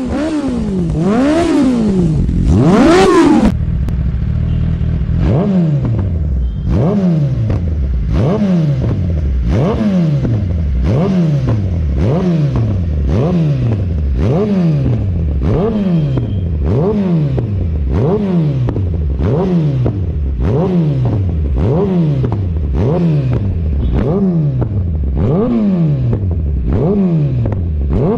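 Kawasaki Ninja ZX-10R's inline-four engine revved over and over while the bike stands still: quick throttle blips about once a second, each a sharp rise in pitch that falls back toward idle.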